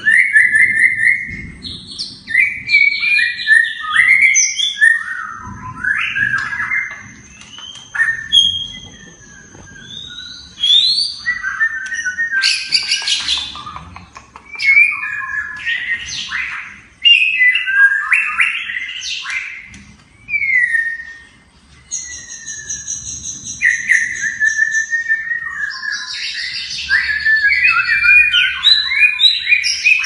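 White-rumped shama singing a long, varied song of clear whistles, rising and falling phrases and quick chattering notes, with short pauses between phrases.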